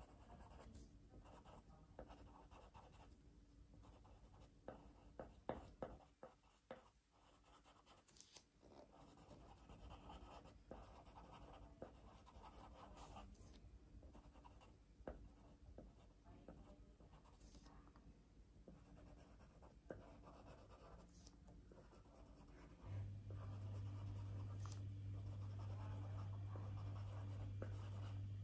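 Pencil scratching softly on paper in short strokes as leaves are drawn onto a tree sketch. Late on a steady low hum comes in and stays.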